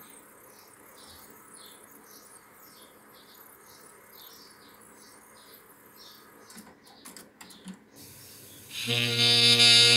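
TEAC V-5010 cassette deck in track search: a faint hum with a run of soft high chirps about twice a second, then a cluster of mechanism clicks about seven seconds in as the transport drops into play. Music starts playing loudly through the speakers near the end.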